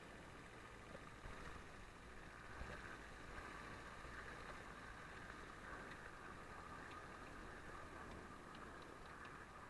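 Faint, steady running of a Lada Niva driving on a snow-covered track: engine and tyre noise with a low rumble.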